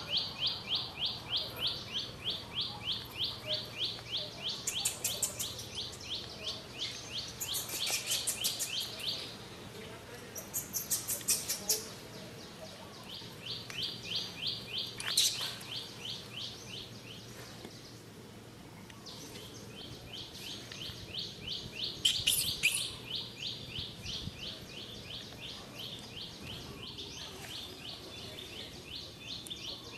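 High chirping from small wild creatures, a rapid even run of notes about five a second that stops and restarts a few times, with short bursts of higher, finer trills over it.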